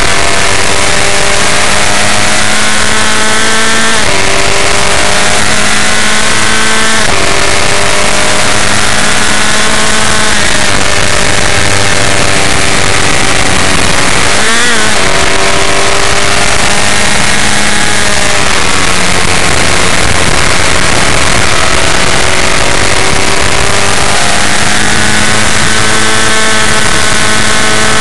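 Formula F1600 race car engine at racing speed, heard onboard: the revs climb and drop with upshifts about four and seven seconds in, dip sharply and pick up again under braking and a downshift about halfway through, then climb once more near the end. Other formula cars run close ahead.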